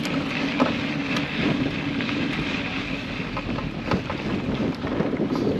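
Vehicle engine running steadily at low speed along a rough trail, with scattered clicks and knocks and wind buffeting the microphone.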